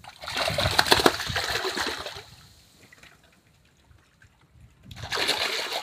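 Water splashing and sloshing in two bursts: one of about two seconds, then a shorter one near the end.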